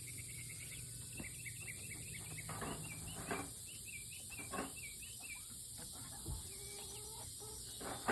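Steady high-pitched chorus of crickets, with many short, quick chirping calls from birds over it and a few soft knocks.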